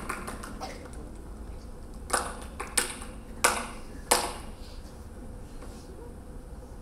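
A few quick taps at the start, then four sharp, echoing knocks about two-thirds of a second apart: hard-soled footsteps on a stage floor.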